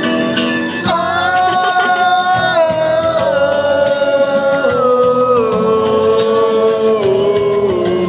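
Music with a voice singing long held notes that step down in pitch one after another.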